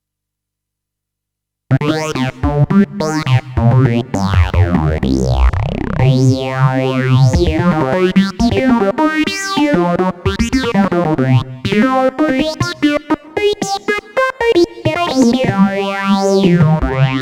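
Roland JD-990 synthesizer playing its 'Talkbox' patch: held notes and chords whose filter sweeps up and down again and again, giving a talking, vowel-like colour. It comes in suddenly about two seconds in, after silence.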